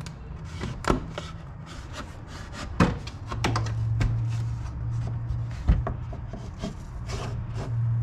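Scattered knocks, clicks and rubbing as hands work loose car interior trim panels. A low steady hum comes in about three and a half seconds in, stops around six seconds, and returns near the end.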